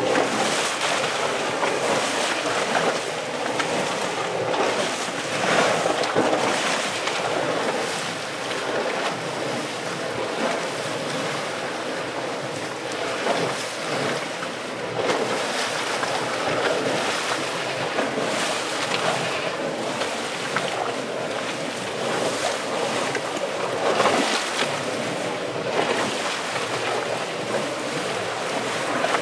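Continuous rushing of a fumarole's steam vent and hot spring, swelling louder now and then.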